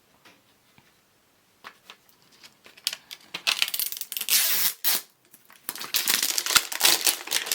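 Hands opening a toy's blind-box packaging: after a brief quiet, scattered clicks, then a burst of crinkling and tearing, followed by a quick run of clicks and rustles of plastic and cardboard.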